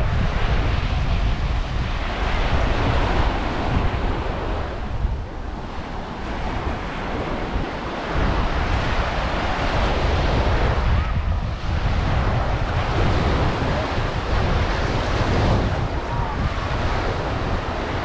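Surf washing onto a sandy beach in swells, with wind rumbling on the microphone.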